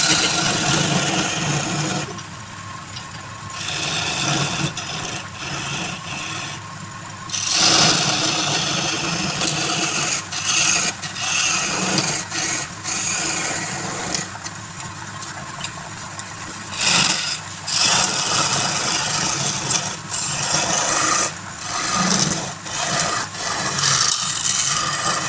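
A turning tool working a piece of wood spinning on a lathe: a dry scraping hiss that swells and fades every few seconds as the tool is pressed on and eased off, over the steady hum of the lathe.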